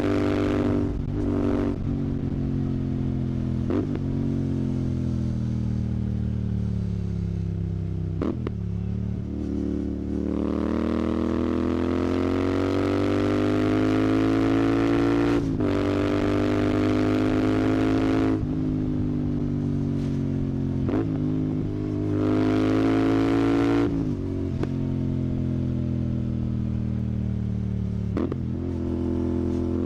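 Royal Enfield Continental GT 650's parallel-twin engine through a Red Rooster aftermarket exhaust, accelerating and shifting repeatedly. The pitch rises as it revs, drops sharply at each gear change, then climbs again; this happens several times, with one long pull in the middle.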